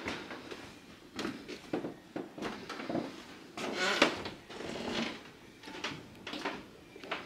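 Scattered soft knocks, clicks and rustles at an irregular pace, the handling noise of moving along and reaching into shelves of china and glass.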